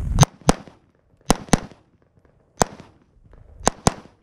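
Rifle shots in quick pairs on a timed course of fire: seven shots in about four seconds, two, two, one, then two, each with a short ringing echo.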